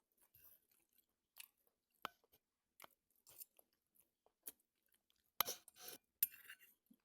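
A person chewing a mouthful of fried rice close to the microphone: scattered short wet mouth clicks and smacks, with a louder run of them near the end.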